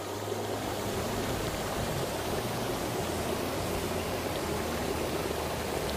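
Steady rushing hiss of hot water and steam at volcanic vents: a steaming hot-spring stream and pool bubbling from the heat.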